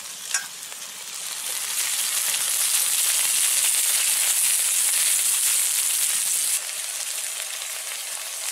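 Vegetables sizzling in hot oil in a pan, a curry of taro, potato and brinjal with fish heads being fried with spices. The sizzle swells about a second in and drops back suddenly about two-thirds of the way through, then carries on more softly.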